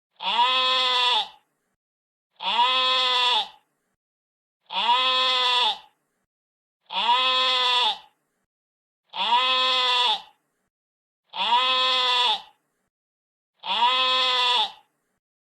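A sheep bleating: seven near-identical, drawn-out bleats of about a second each, repeating evenly about every two seconds with silence between them.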